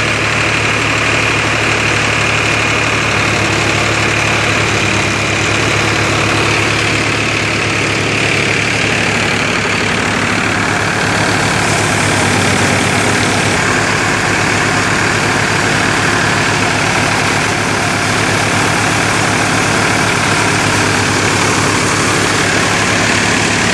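Powertrac 439 Plus tractor's three-cylinder diesel engine running steadily under load as it drives a wheat thresher, with the thresher's dense mechanical whir and a steady high whine over the engine.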